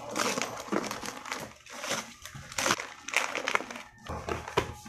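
Gift-wrapping paper being torn open and crinkled by hand, in several quick crackling rustles.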